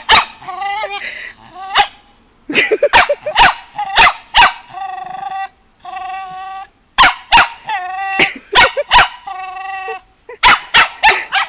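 Shetland sheepdog barking at another dog in repeated sharp clusters, with drawn-out high whines between them: the nervous barking of a dog that has become wary of other dogs.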